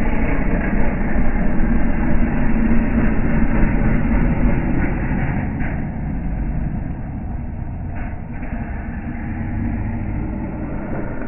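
Snowmobile engine running hard as the sled jumps off a snow mound. The sound is loudest over the first few seconds and eases off after about five seconds.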